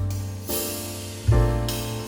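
Background music: piano or keyboard chords over a strong bass, the chords changing about every second, with a light cymbal shimmer.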